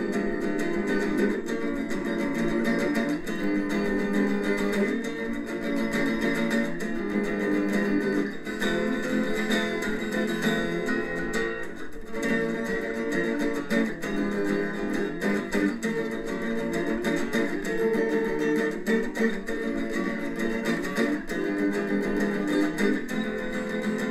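A home-made multitrack music recording playing back from a Cakewalk Pro Audio 9 project, steady and without a break, with a muffled sound that has little deep bass or treble.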